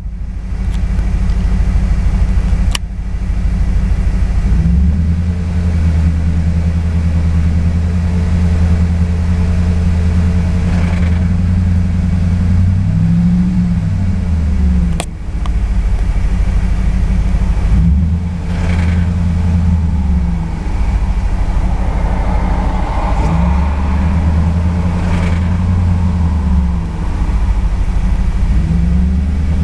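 Audi RS6 C5's 4.2-litre twin-turbo V8 running just above idle, its revs raised and let fall gently several times, with two sharp clicks about 3 and 15 seconds in. The engine makes a clacking that, according to the owner, always appears between 1100 and 1200 rpm and that he cannot identify.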